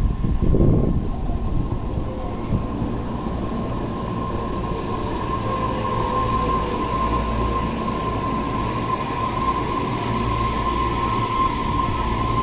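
Tobu 60000 series electric train pulling in along the platform and slowing, with a low rumble of wheels and running gear. A steady high whine rises up over the rumble about two seconds in and holds through the braking.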